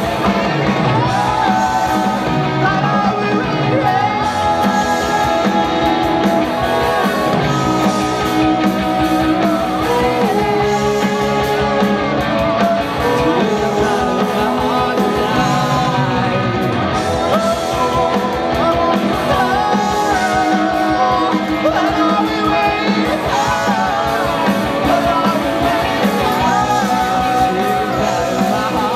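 Live rock band playing with singing: electric guitars, bass guitar and a drum kit under a lead vocal, loud and steady throughout.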